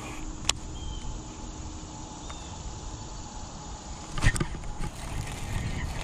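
Baitcasting cast with a topwater lure: a sharp click about half a second in, then about four seconds in a louder burst of knocks and splashing as the lure lands and a bass strikes it at once.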